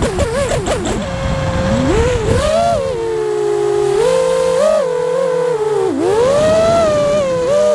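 5-inch FPV quadcopter's brushless motors and propellers whining, the pitch sweeping up and down with the throttle. The pitch wobbles quickly in the first second, then rises and falls more slowly.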